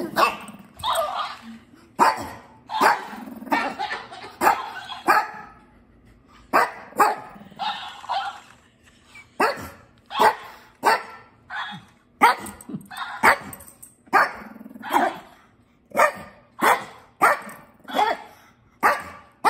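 Shih Tzu barking in a long run of short barks, about one a second, pausing briefly twice, back and forth with a sound-repeating plush toy that plays each bark back.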